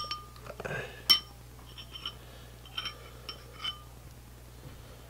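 A metal spoon clinking against a glass bowl while stirring a watery glue-and-borax mixture. There is a sharp ringing clink at the start and another about a second in, then a scatter of lighter taps over the next few seconds.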